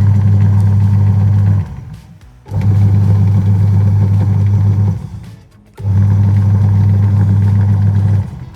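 Semi-automatic washing machine's wash motor humming in runs of about two and a half seconds, each cut by a pause of about a second before it starts again: the wash tub's pulsator agitating back and forth through the gearbox.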